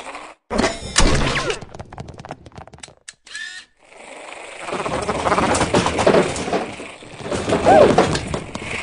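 Sound effects of the animated WALL-E robot among plastic balls. A couple of knocks come first, then a fast rattle of clicks. After a short gap there is a long stretch of clattering mixed with wavering mechanical whirring as the robot rushes through the balls.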